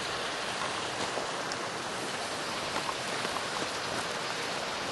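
Steady rushing of a nearby waterfall, an even unbroken wash of falling water.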